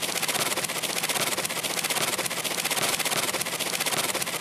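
Cartoon sound effect: a steady, rapid rattling scrape that holds at an even level.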